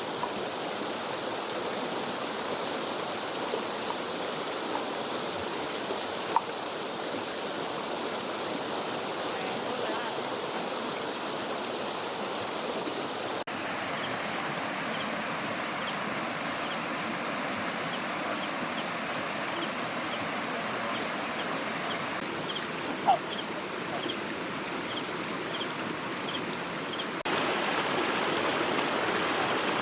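Steady rushing of river water from a small waterfall. The tone shifts slightly about halfway through and again near the end, and a faint run of light ticks sits over the middle part.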